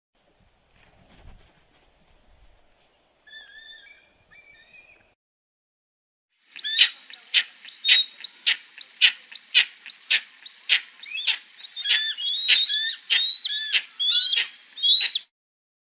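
Eagle calling: a few faint high calls, then a long rapid run of sharp, high piping calls at about two a second, stopping shortly before the end.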